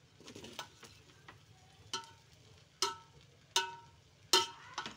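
A spoon knocking against the side of a metal pot while cooked jeera rice is turned and fluffed: about six separate clinks, each with a short metallic ring, the loudest one near the end.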